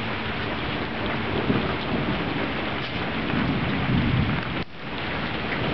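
Thunderstorm: steady rain falling, with a low rumble of thunder underneath.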